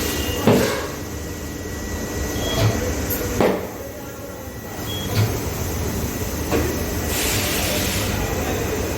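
Michelin Road 6 tubeless motorcycle tyre being inflated on the rear rim: the beads seat with several sharp bangs a second or two apart, the loudest about half a second in, then a steady hiss of compressed air over the last two seconds.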